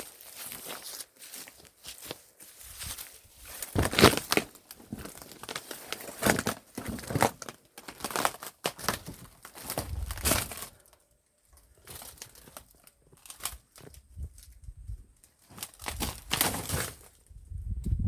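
Footsteps crunching and crackling over debris, in irregular steps with a short pause a little past halfway.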